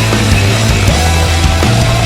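Loud rock music, its low bass notes shifting pitch about a second in and again near the end.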